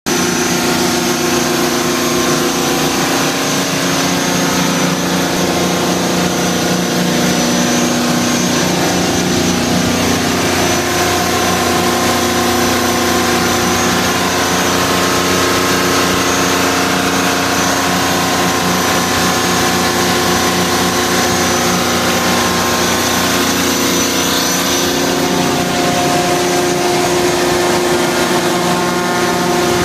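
Detroit Diesel 450 kW generator set's diesel engine running steadily at its constant governed 1800 rpm speed, a loud even drone with no change in speed.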